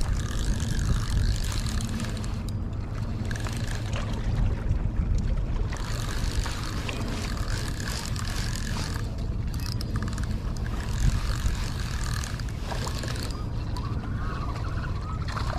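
Steady low rumble of wind buffeting the microphone, with water washing against the jetty rocks underneath.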